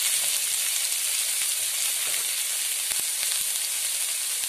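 Sliced onions sizzling in hot coconut oil in a pan, a steady frying hiss, with a few light scrapes of a metal spatula as they are stirred.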